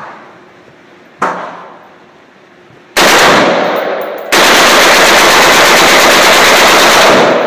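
A compact automatic firearm fired on an indoor range: a single shot about a second in with a reverberant tail, then long, very loud full-automatic fire from about three seconds in, with a brief break near the middle, running until near the end.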